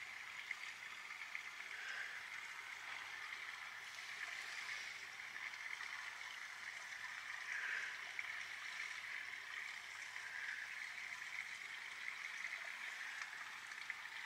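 Steady rush of running water, an even hiss with small swells in strength and no distinct events.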